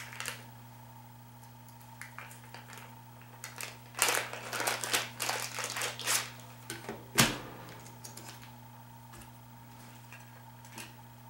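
Rustling and clicking of stand parts and their packaging being handled, thickest from about four to seven seconds in and ending in one sharp knock. A steady low hum runs underneath.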